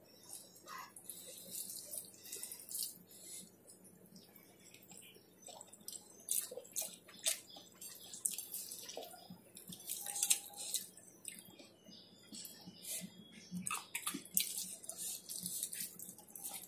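Close-miked eating by hand: wet chewing and mouth noises, with fingers scooping food from a steel plate, heard as many short, crisp crackles and smacks.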